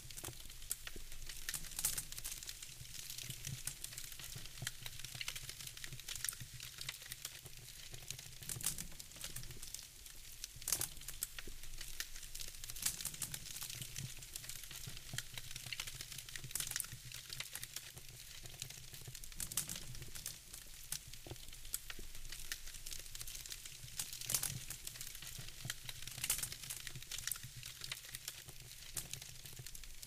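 Wood fire burning in a fireplace: logs crackling steadily with frequent sharp snaps over a soft hiss.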